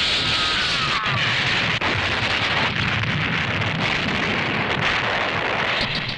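Pyrotechnic explosion and fire effect: a dense, steady rush of blast noise lasting several seconds, with a few sharp cracks.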